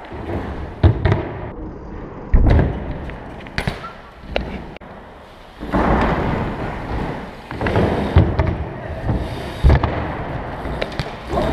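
BMX bike tyres rolling on a concrete floor, broken by a string of sharp thuds and clacks as the bike hops onto and lands off a wooden ledge box.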